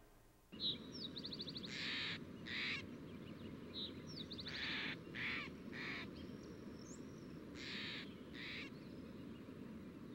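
Wild birds calling: a series of short, harsh, raspy calls, several of them in pairs, with a quick high trill about a second in and a few thin chirps, over a steady low outdoor hiss.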